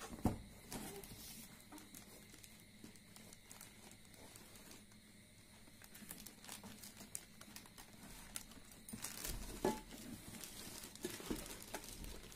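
Faint rustling of cardboard packaging and crinkling of a clear plastic bag as a stainless steel fry pan is unpacked from its box, with scattered small knocks. It grows busier over the last few seconds.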